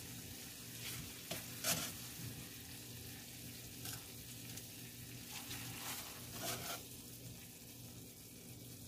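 Faint sizzle from a pan of still-hot poaching water just off the heat, over a steady low hum, with a few light clicks of metal tongs on the pan and plate as boiled mackerel are lifted out.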